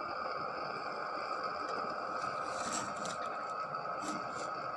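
A knife cutting a lemon on a board: a few faint, short knocks about halfway through, over a steady background hiss.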